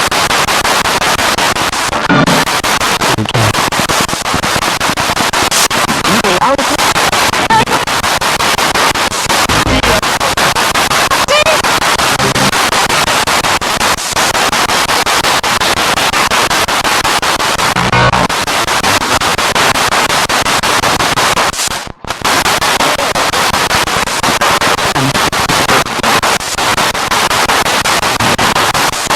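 Spirit box radio scanning rapidly through stations: loud, continuous static and hiss chopped up with brief snatches of broadcast voices and music, with a short dropout about three quarters of the way through.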